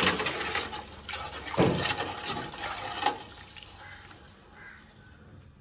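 A ladle stirring and sloshing thin spiced liquid in a large metal pot, with a few knocks. The stirring dies away about three seconds in.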